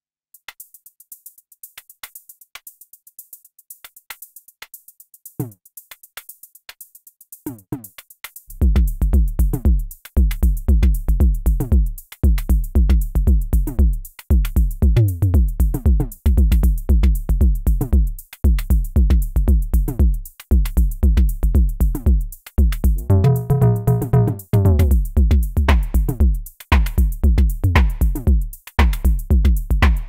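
Mode Machines ADX-1 analog drum machine playing a pattern: faint, thin hi-hat ticks alone at first, then about eight seconds in a loud bass voice with a falling pitch comes in, repeating fast. Around two-thirds of the way through a ringing pitched tone sounds briefly over it.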